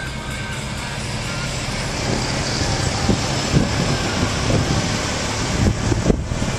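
Car driving up a mountain road, heard from inside: a steady engine and road rumble, with a few short knocks and thumps in the second half.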